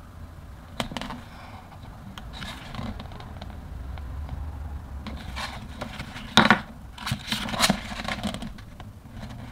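Pages of a large photobook being turned by hand: paper rustling and sliding, with the loudest turns about six and a half and seven and a half seconds in, over a steady low hum.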